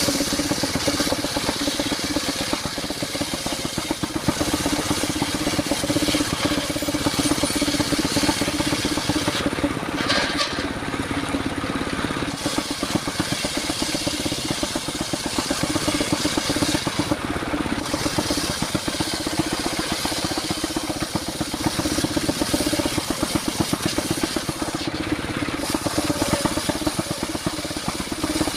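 Engine-driven circular sawmill running steadily with a fast, even pulsing and a high hiss, which briefly falls away three times.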